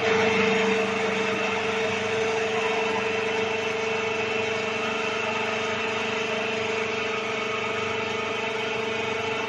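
Anchor drilling rig's drive motor running steadily as it turns the drill rod into the slope: a constant hum with one steady whining tone. It is a little louder for the first second.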